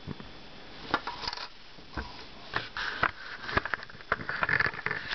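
Handling noises from an opened plastic toy nightlight: irregular sharp clicks and light knocks of small plastic parts and wires being moved, with some rustling between them.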